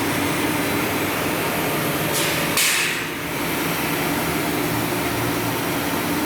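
Diamond wire saw running through a large block of copper, a steady mechanical hum. A brief loud hiss rises over it about two seconds in.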